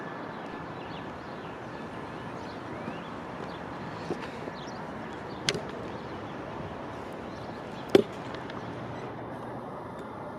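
Steady city background noise with distant traffic; the siren is no longer sounding. A sharp knock comes about halfway through and a louder one a few seconds later.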